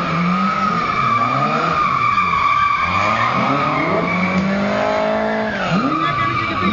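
Drift car sliding with a steady high tyre squeal while its engine revs rise and fall; about five seconds in the engine revs climb hard and then drop.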